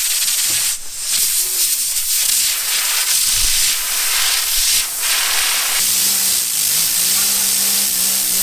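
Compressed air blasting from an air compressor's blow gun at a fidget spinner: a loud, steady hiss, briefly broken about a second in and again near five seconds. A steady low hum joins about six seconds in.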